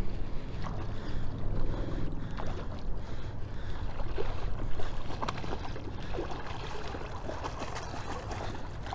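Wind on the microphone and splashing water, with a few sharp clicks, as a hooked smallmouth bass is reeled in and landed.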